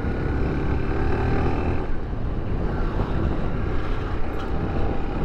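Motorcycle engine running as the bike cruises along the road, heard from the rider's seat over wind and road noise. Its steady tone is clear for the first couple of seconds, then sinks into an even rumble.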